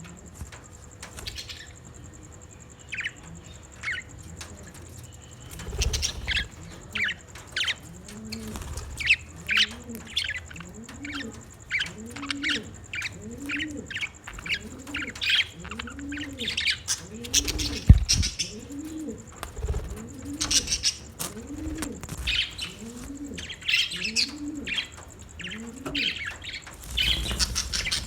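Budgies chirping and chattering in short high notes throughout. Under them a low cooing call repeats about once every second and a bit through most of the stretch. There is one sharp thump about two-thirds of the way through.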